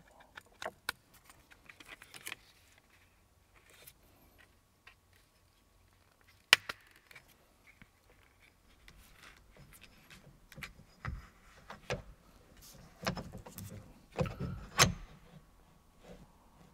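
Small plastic wiring connectors and harness clips clicking and rattling as they are handled and plugged in at the steering column hub, with scattered single clicks, one sharp click about six and a half seconds in, and a busier run of rattling near the end.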